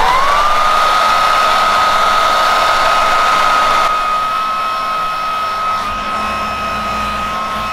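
Handheld hair dryer running: a steady rush of air under a high motor whine that rises and settles right at the start, getting a little quieter about four seconds in.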